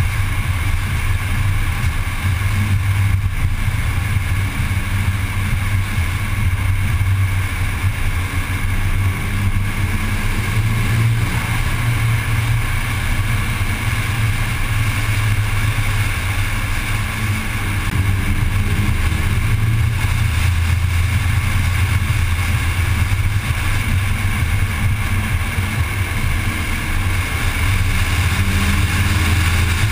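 Car cruising at steady speed: a constant low engine drone with tyre and road noise, swelling slightly a couple of times, in a road tunnel.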